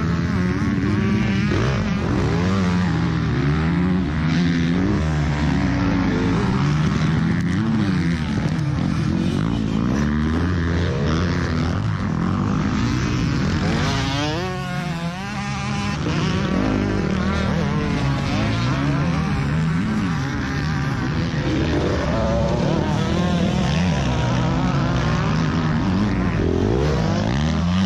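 Several motocross bike engines revving and passing close by, their pitches rising and falling and overlapping.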